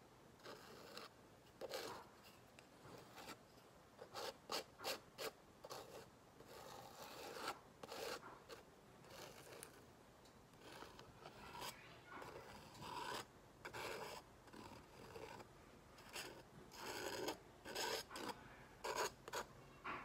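Palette knife scraping and spreading wet acrylic paint across a canvas pad, in a series of short, irregular strokes, some coming in quick runs.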